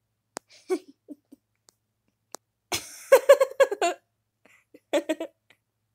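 A person laughing in quick 'ha ha ha' pulses. There is a loud burst about halfway through and a shorter one near the end, after two sharp clicks earlier on.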